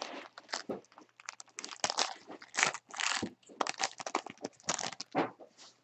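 Trading card pack wrapper crinkling and cards being handled: a run of short, irregular rustles and crinkles.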